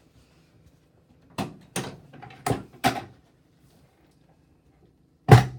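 Chiropractic drop table clacking four times, then one loud clunk near the end as a drop section falls under an adjustment thrust at the low back (L5), dropping about half an inch.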